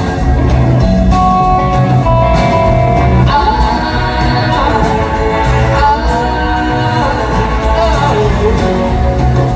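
Live band playing a song, with sung long held notes over guitar and a steady bass.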